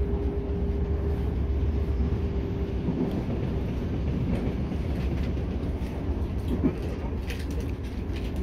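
Cabin sound of a Class 465/466 Networker electric multiple unit running at speed: a steady low rumble of wheels on the track, with a steady whine from the traction equipment for the first few seconds and a run of clicks near the end.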